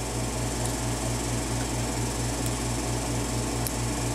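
A steady low machine hum, pulsing evenly about seven or eight times a second, with a few faint ticks as a lock pick works the pins of a padlock.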